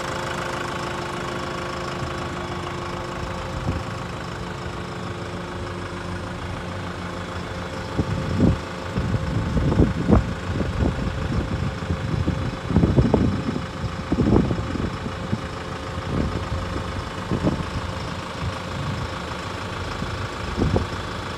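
ARBOS P5115 tractor's Kohler diesel engine idling steadily. From about eight seconds in, irregular low thumps and rumbles come and go over it, louder than the engine.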